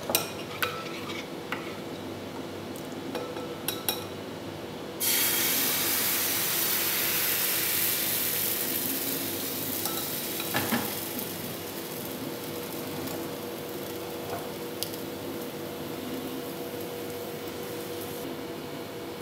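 Egg-and-flour flatbread batter poured into a hot oiled nonstick frying pan: a few light clinks of a ladle against the bowl, then about five seconds in the batter hits the oil with a sudden loud sizzle that slowly dies down to a steady frying hiss.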